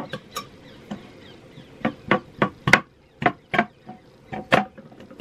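Knife point being stabbed repeatedly into the lid of a tuna tin to open it without a can opener: about nine sharp, irregular knocks, the thickest run of them in the middle.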